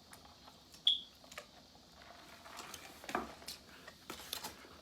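Quiet eating and food-handling noises: scattered small clicks and knocks, with one short high-pitched clink about a second in.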